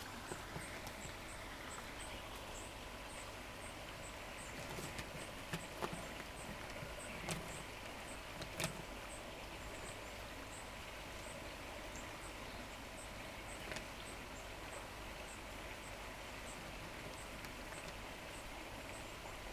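Quiet garden ambience with an insect chirping high and evenly, a few chirps a second, and a few light knocks about a third of the way through.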